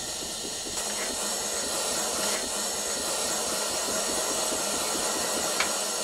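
Small gas soldering torch's flame hissing steadily while it heats a solder joint on a small metal cross, with a few faint ticks.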